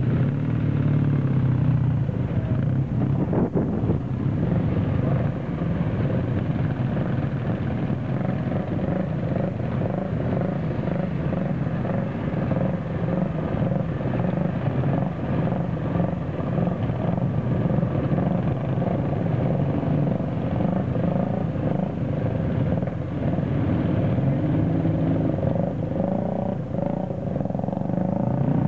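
Several vintage motorcycle engines running as a string of bikes rides away at low speed, a steady low drone.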